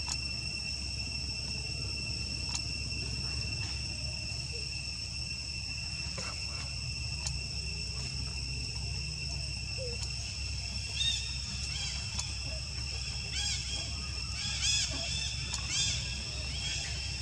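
Steady, high-pitched insect chorus, a constant shrill whine held on a few pitches, over a low rumble. In the second half, clusters of short squeaky chirps come in.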